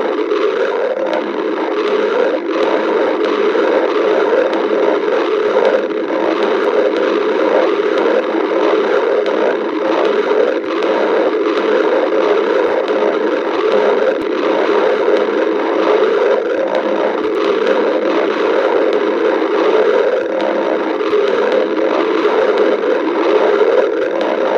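A stomach growling and gurgling without pause: a steady low rumble with many small crackling gurgles running through it.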